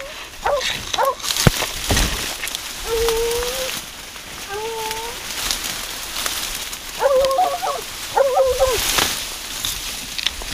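Hunting dogs baying and barking on a hog hunt. There are short barks, two longer drawn-out calls, and quick clusters of barks near the end, with cracks and rustling between the calls.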